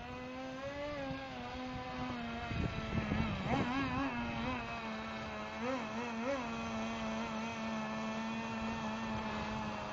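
Small two-stroke nitro engine of an HPI radio-controlled car running at a steady pitch, revving up briefly a few times in the middle.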